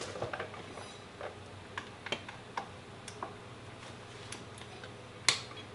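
Scattered light clicks and ticks of metal hand tools being handled, with one sharper clack about five seconds in.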